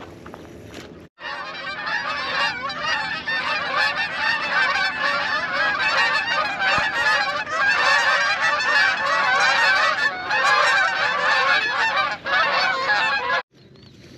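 A large flock of geese calling in flight, many overlapping honks at once; the calls cut in about a second in and stop abruptly near the end.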